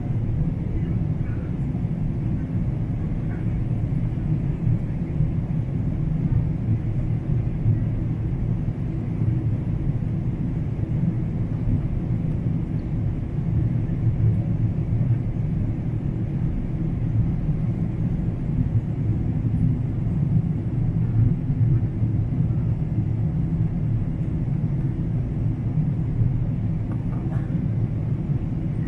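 Steady low rumble of a Boeing 777-300ER heard inside the passenger cabin in flight: engine and airflow noise on the descent, with no change in pitch or loudness.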